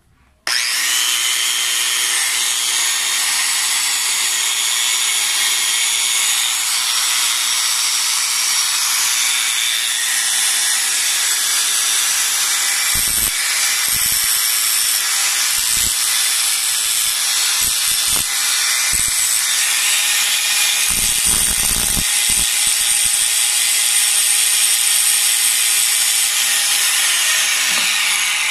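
Bosch GWS 6-100 angle grinder switched on about half a second in, spinning up and then running at full speed with a steady high whine. Between about 13 and 22 seconds in, its disc is touched to a steel rod several times, grinding it in short bouts.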